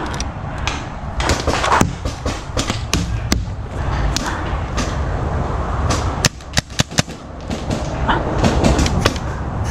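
Paintball markers firing in scattered shots, with a quick string of cracks about six seconds in, over a steady low rumble.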